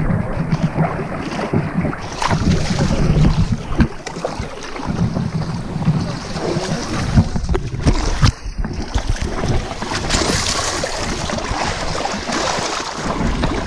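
Muddy water sloshing and splashing against a camera held at the water surface, with a low buffeting rumble; the splashing grows brighter and heavier about ten seconds in as water is thrown.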